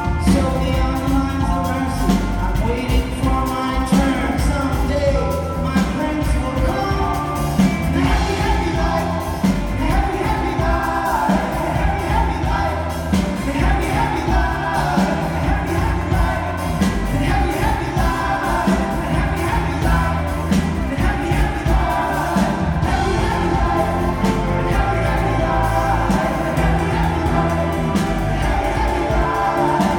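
Live rock band playing with sung vocals, drums and bass, recorded from the audience.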